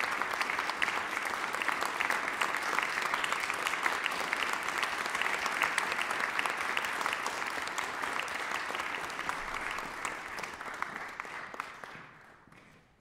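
Audience applauding: dense, steady clapping from many hands that fades out near the end.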